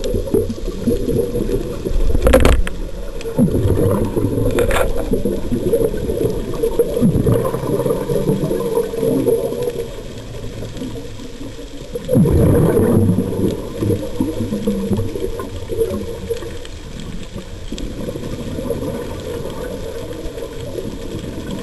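Muffled underwater rumble and gurgling of a scuba diver's exhaled bubbles heard through the camera's underwater housing, with a louder surge of bubbles about twelve seconds in. Two short knocks on the housing come in the first five seconds.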